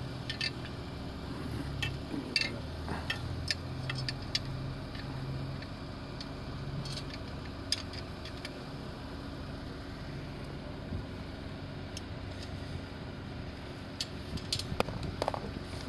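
Light metallic clicks and taps of tricycle frame parts being handled and fitted together, scattered and irregular with a quick cluster near the end, over a steady low hum.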